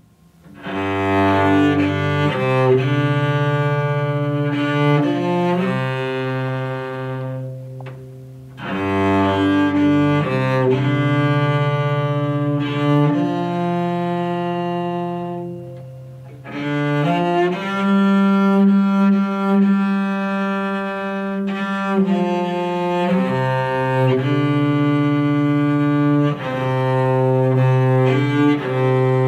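Cello played with the bow: a slow melody of long held notes in three phrases, with a brief pause between each phrase.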